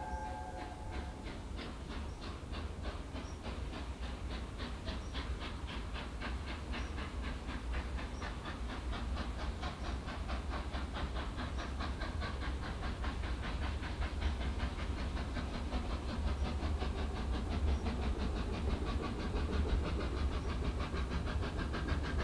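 Steam locomotive working hard as it approaches, its chimney exhaust beating in a fast, even rhythm that grows slowly louder, over a steady low rumble.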